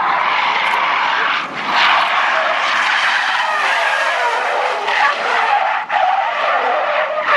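Car tyres squealing continuously as a sedan drifts sideways at speed, the screech wavering in pitch and breaking off briefly a couple of times.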